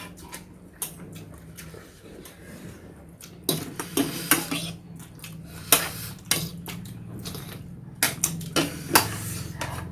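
Light clinks and knocks of cutlery against a noodle bowl, a scatter of separate taps that come more often in the second half.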